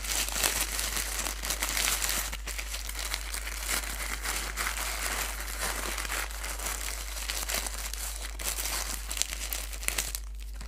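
Thin plastic poly mailer bag being crumpled and worked open by hand: a continuous crinkling rustle that thins out about ten seconds in.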